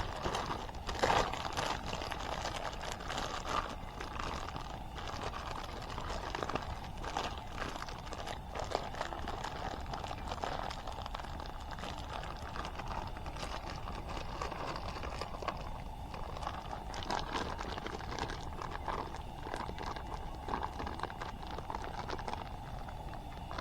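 Wood campfire crackling steadily, with irregular sharp pops and snaps throughout.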